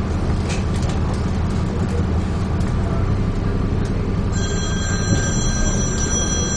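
Interior rumble of a Dennis Trident 2 double-decker bus under way, with light rattles. About four seconds in, a steady high electronic tone sounds for about two seconds.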